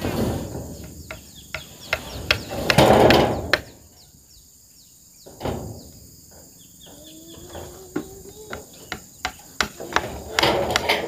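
Irregular hammer knocks, a dozen or so spaced unevenly, from nailing corrugated zinc roofing sheets, with a few louder rustling swells of the sheets or wind, the biggest about three seconds in. Short high bird chirps in between.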